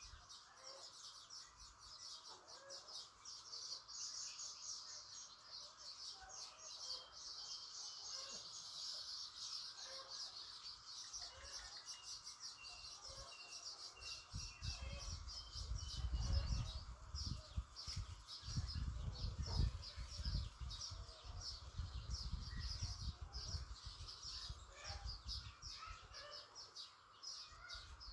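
Many birds chirping continuously in dense, quick, high-pitched calls. A low rumble comes in about halfway through and fades out near the end.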